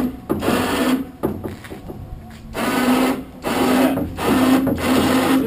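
12-volt electric power winch motor whining in about six short bursts of half a second or so, winding in the strap that lifts the trike's wing and mast.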